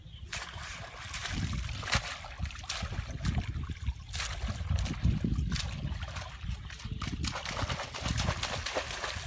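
Water splashing and sloshing irregularly as a cast net is shaken and dragged through muddy shallow water by men wading in it.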